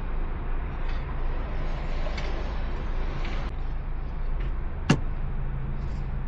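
2017 Subaru Impreza's 2.0-litre flat-four, exhaust muffler-deleted, idling steadily as heard from inside the cabin. It has settled out of its cold-start high idle. A single sharp click sounds a little under five seconds in.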